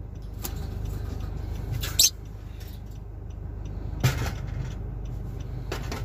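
Steady low rumble of a car's cabin with the engine and air conditioning running, broken by a few short, sharp sounds, loudest about two and four seconds in.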